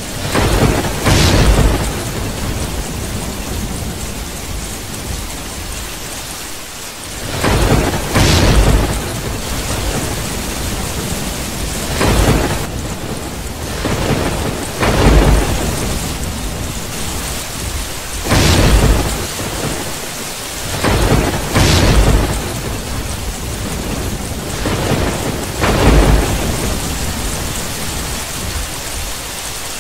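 Thunderstorm ambience: steady rain with thunder cracking and rumbling every few seconds, about eight claps, some coming in quick pairs.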